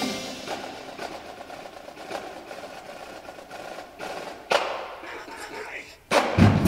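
Marching snare drumline playing a soft passage of quick, light stick taps. There is one sharp ringing hit about four and a half seconds in, a brief hush, then a loud hit from the whole battery, bass drums included, just before the end.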